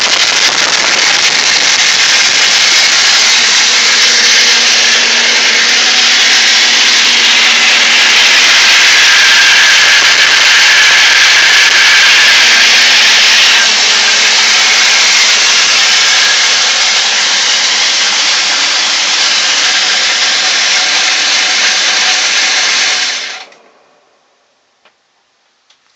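BMW M52 straight-six engine running with a loud, steady grinding noise, which stops suddenly near the end.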